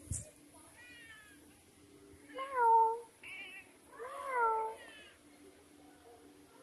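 Domestic cats meowing. Two loud meows, about two and a half and four seconds in, each rising and then falling in pitch, with fainter, higher-pitched meows between and before them.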